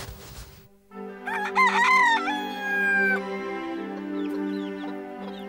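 A rooster crows once, starting about a second in: a long call that rises, is held and trails off. It plays over background music with steady held notes, and a few faint short bird calls follow.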